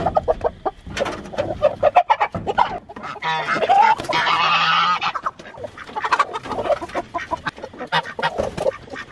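Chickens squawking and clucking as they are grabbed by hand off the roost and carried, with wings flapping and rustling. One loud, harsh squawk rises at the start and lasts about two seconds, starting a little after three seconds in.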